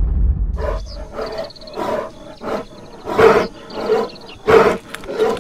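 Bear growling in a run of about eight short grunting calls, roughly one every half second, with a low rumble under the first second.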